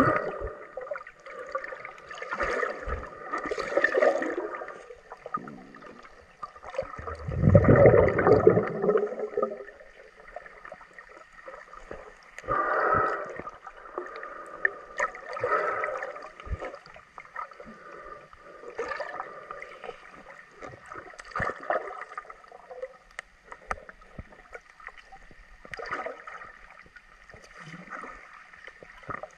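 Muffled underwater gurgling and sloshing heard through a camera's waterproof housing, coming in irregular surges every few seconds, with the deepest, loudest surge about a quarter of the way in.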